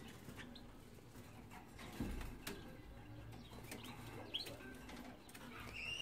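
Faint, short canary chirps, a few of them near the end, with soft knocks from a plastic nest basket being handled about two seconds in.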